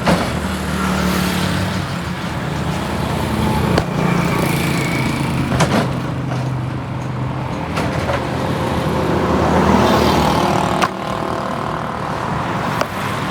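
An engine running steadily, with a few sharp knocks over it.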